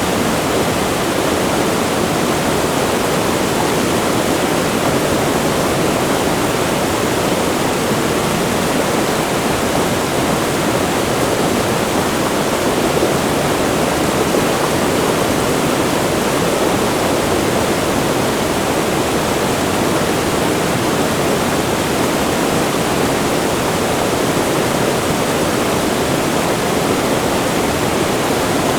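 Rushing water of a wide river flowing right by a waterfall: a loud, steady, unbroken wash of water noise.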